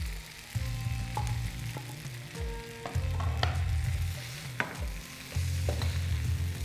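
Fried chicken pieces and rice being stirred and tossed with a spatula in a hot frying pan. The pan sizzles, and the spatula clicks sharply against it several times. A low hum comes and goes underneath.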